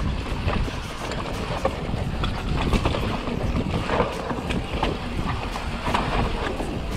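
Mountain bike riding fast down a dry, rocky dirt trail: wind buffeting the microphone over the crunch of tyres on dirt, with the bike rattling and clicking over bumps and rocks.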